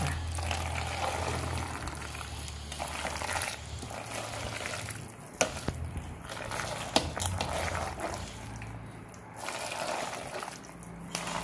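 A spatula stirring mayonnaise-dressed macaroni salad in a stainless steel pot, a continuous wet squelching, with a couple of sharp clicks near the middle.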